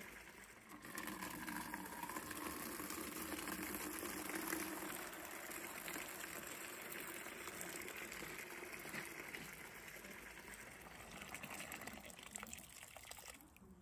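Spent washing-soda water from a frame-boiling tank pouring out of a drain tap and pipe into a plastic bucket, a steady splashing stream. The tank is being drained down once the soda water is used up. The stream stops shortly before the end.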